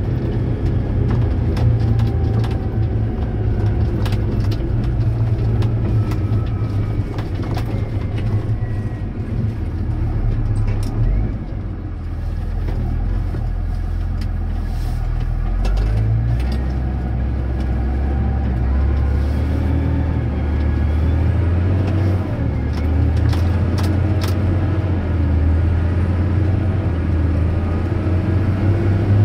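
Massey Ferguson 6480 tractor's diesel engine running steadily under way, with frequent short knocks and rattles. About a third of the way through the engine note drops, then settles at a new pitch.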